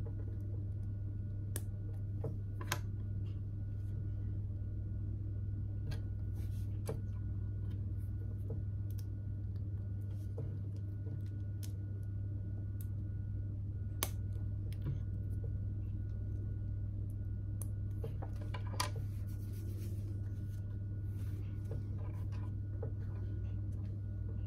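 Small plastic LEGO pieces clicking now and then as they are handled and pressed together, a dozen or so short sharp clicks spread out over a steady low hum.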